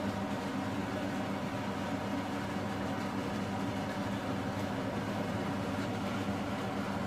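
A steady low hum with a faint hiss, over a pan of curry sauce simmering on a gas hob and being stirred with a wooden spoon.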